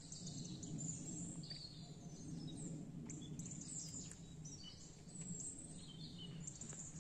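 Faint outdoor ambience: small birds chirping now and then over a low, steady rumble, with a few faint ticks.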